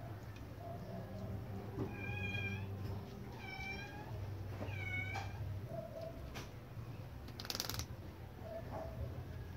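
A cat meowing three times, short high calls about a second and a half apart starting two seconds in, followed near the end by a brief burst of noise.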